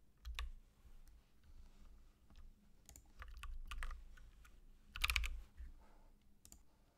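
Computer keyboard being typed on: faint scattered key clicks in a few short flurries, the loudest about five seconds in.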